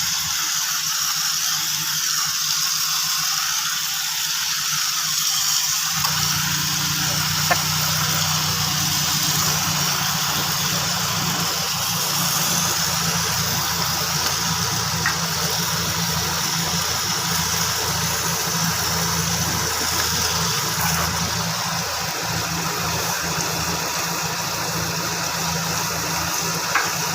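Car engine idling with a steady low hum that comes in about six seconds in, under a steady hiss that runs throughout.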